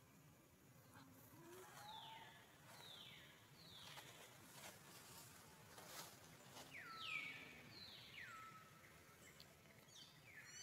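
Faint, high whistled calls, each sliding quickly downward in pitch, about ten of them in loose groups, over a soft background hiss with a few light clicks.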